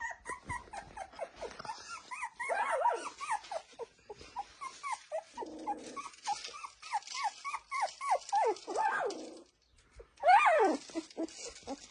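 A litter of 19-day-old Lagotto Romagnolo puppies whimpering and squeaking: many short, high cries falling in pitch, overlapping one after another. A louder, longer falling cry comes just after a brief lull near the end.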